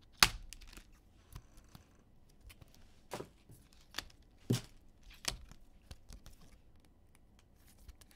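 Trading cards and their packaging being handled on a table: a scatter of short, sharp clicks and snaps, the loudest about a quarter of a second in, with a few more after about three seconds.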